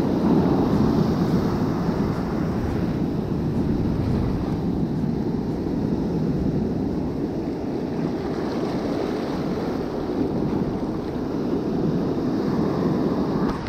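Ocean surf breaking and washing over the sand in a steady, dense hiss, with wind noise on the microphone.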